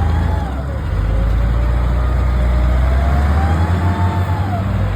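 Unimog off-road truck engine running, with a deep rumble underneath and a whine that rises and falls twice.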